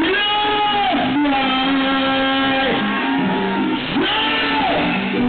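Live band playing through a PA, led by an electric guitar holding long notes that slide down in pitch several times over a steady bass line.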